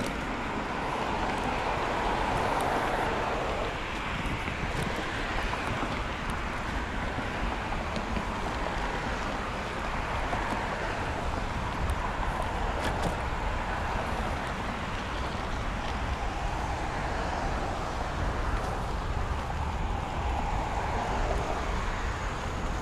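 Bicycle tyres rolling over a gravel trail, a steady crunching hiss that swells and eases, with wind on the microphone and a few faint clicks.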